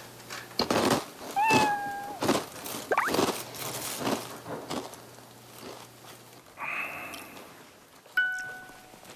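Crunching of crisp snack chips being chewed, then a cat meowing: one short call that falls slightly, followed by a quick rising squeak.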